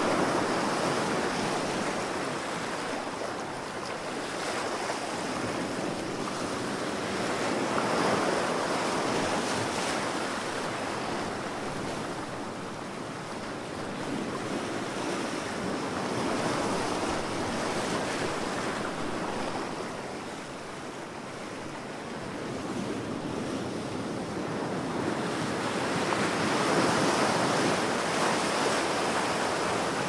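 Ocean surf: a continuous wash of breaking waves that swells and fades every several seconds.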